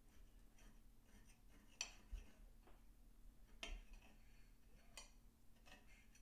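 Faint clinks of a knife and fork against a plate while cutting through a baked portobello mushroom cap: about four light, sharp clicks spread through a quiet stretch.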